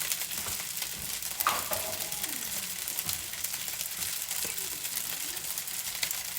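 Rice and garlic frying in hot oil in a pan: a steady sizzle, with a few light clicks of stirring.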